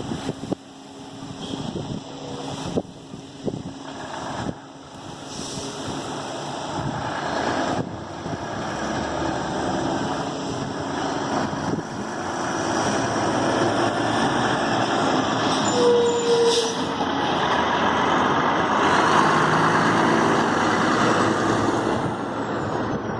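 Heavy diesel truck running under power, its sound building steadily louder over the clip.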